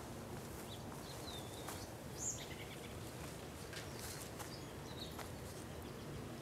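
Faint outdoor garden ambience: steady low background noise with a few short, high bird chirps and scattered light clicks.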